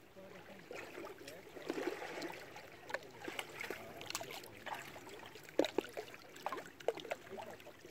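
Choppy lake water lapping and splashing against shoreline rocks, with irregular sharp slaps of small waves.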